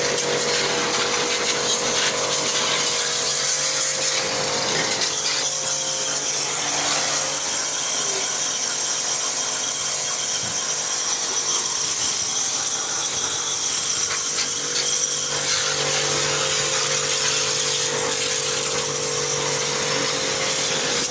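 A power tool's motor running continuously and loudly. Its steady tone drops away about five seconds in and returns about fifteen seconds in, as its running changes. It stops at the end.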